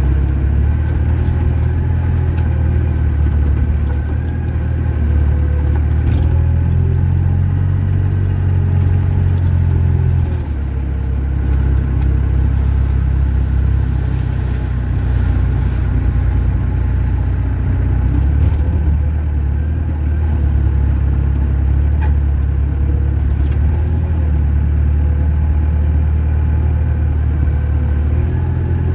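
Heavy earthmoving machine's diesel engine running steadily under load, a deep continuous rumble. Its low note eases about ten seconds in and swells again a little past the middle.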